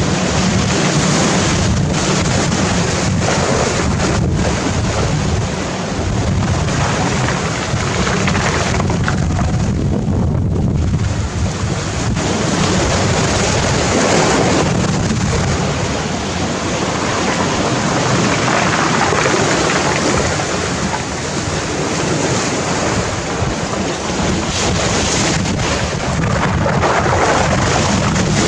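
Sea waves breaking on a pebble beach, surging in several times, one after another, and washing over the stones, with wind rumbling on the microphone.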